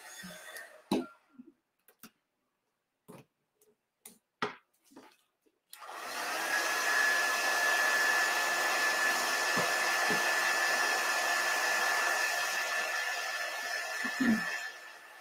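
Handheld craft heat tool (embossing heat gun) switched on about six seconds in and running steadily, a fan rush with a steady high whine, then cut off with a thump near the end. Before it comes on, a few light clicks and taps of handling.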